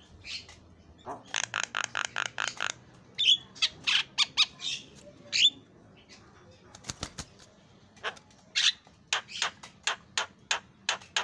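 Javan myna (jalak kebo) calling: a quick run of evenly spaced short notes, then several louder harsh calls, a brief cluster of sharp clicks about seven seconds in, and another series of spaced notes near the end.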